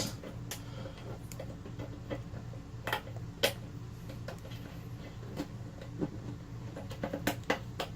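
Scattered sharp clicks and taps of plastic and metal parts being handled as a handheld shower head's hose nut is screwed onto the shower arm, over a steady low hum.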